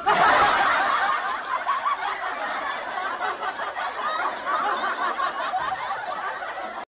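Canned laughter: many people snickering and chuckling at once, starting abruptly and cutting off suddenly near the end.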